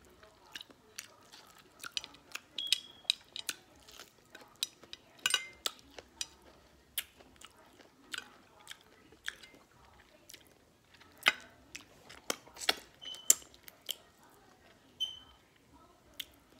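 A person chewing food close to the microphone, with frequent wet mouth smacks and clicks at an irregular pace.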